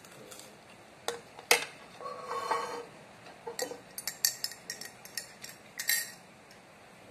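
Metal cutlery clinking and tapping against a ceramic bowl and mug: a few separate clinks, one loud one about a second and a half in, then a quick run of light taps and clinks a couple of seconds later.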